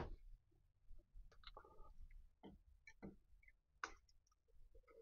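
Faint, scattered metal clicks and taps of a small silver-steel blank being screwed onto a threaded arbour in a lathe chuck and gripped with water-pump pliers, with one sharper click right at the start.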